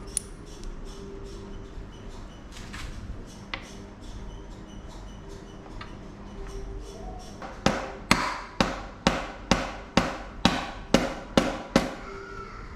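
Hammer blows in bicycle frame linkage bearing work: a few single knocks, then a run of about ten sharp strikes at roughly two a second near the end, typical of tapping bearings or pivot hardware into place.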